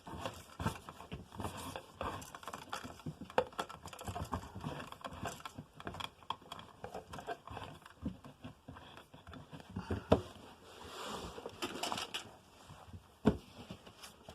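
Irregular scraping, rustling and small knocks of electrical cable being fished through the wall and fed into an outlet box, with a few sharper knocks about ten seconds in and near the end.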